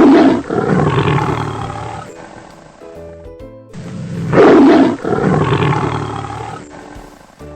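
Tiger roaring twice, each roar a loud burst that trails off into a long, fading rumble, the second about four seconds in. Background music underneath.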